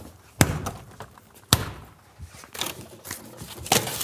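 Things being rummaged through and set down hard behind a bar counter: two sharp bangs about half a second and a second and a half in, then smaller knocks and clatter, with another loud knock near the end.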